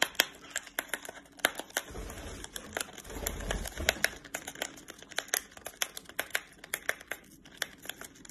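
A parrot tearing and crinkling open tea packaging with its beak: a dense, irregular run of sharp snaps and crinkles, with a low rumble of handling about two to four seconds in.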